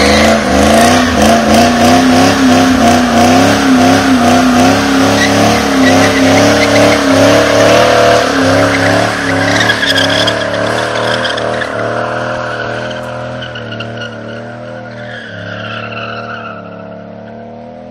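Pontiac Firebird's LT1 5.7-litre V8 through a 3-inch Magnaflow exhaust, held at high revs during a burnout, with the rear tyres squealing. The revs waver up and down, and the sound fades away over the second half as the car leaves.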